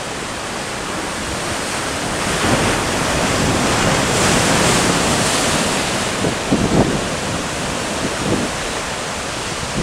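Sea surf breaking and washing over shore rocks, swelling to its loudest a few seconds in as a wave crashes, with wind buffeting the microphone.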